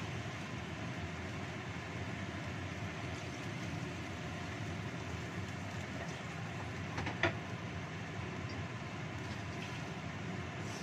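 Steady hiss and rumble of a gas stove burner under a wok of broth simmering, with one short click about seven seconds in.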